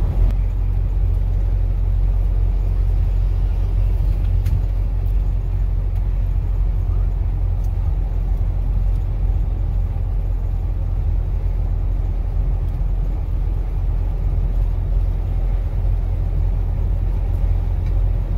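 Steady low rumble of a vehicle's engine and tyres on a paved road, heard from inside the cabin while driving.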